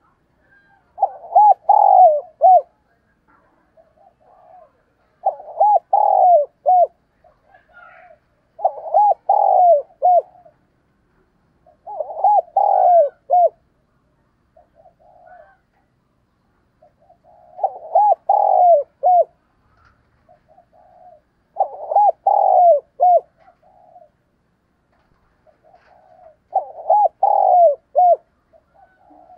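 Spotted dove cooing: seven phrases of several quick coos each, repeated about every three to four seconds, with a longer pause midway and soft single coos between phrases.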